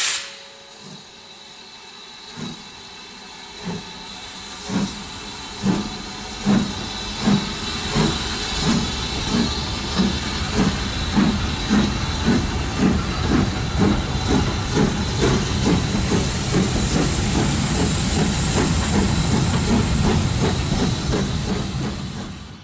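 BR Standard Class 4 2-6-4 tank engine 80151 starting away with a train. Its exhaust chuffs begin about a second apart and quicken to about three a second as it gathers speed, over a steady hiss of steam. The sound dies away near the end as the train leaves.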